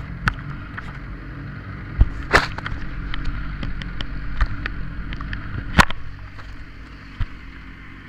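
Handling noise from a small onboard camera being gripped and removed by hand: irregular knocks, clicks and rubbing against the casing, loudest about two seconds in and again near six seconds. A low steady rumble runs underneath and drops after about six seconds.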